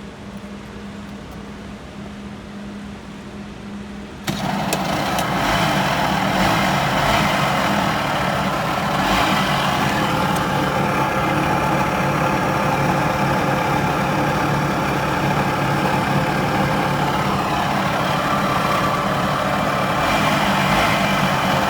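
Honda Cabina 90 scooter engine running with a loud, harsh mechanical noise that jumps up suddenly about four seconds in and stays loud; the owner puts the noise down to a failing crankshaft bearing.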